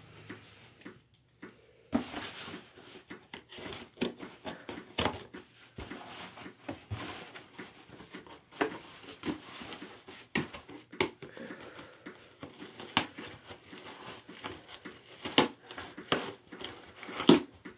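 Hands working at a taped cardboard shipping box: irregular scratching, tapping and crinkling of cardboard and packing tape as the flaps are picked at and pulled open, with a few sharper rips or snaps, the loudest near the end.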